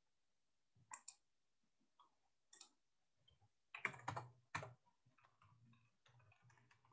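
Faint computer keyboard typing: a few scattered clicks, then a short run of keystrokes about four seconds in, followed by lighter ticks.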